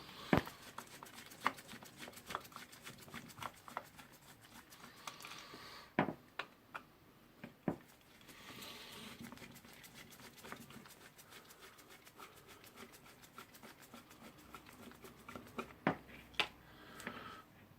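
Faint scattered clicks, ticks and scraping of a screwdriver and small metal parts as the two screws holding a rotary hammer drill's field coil are undone.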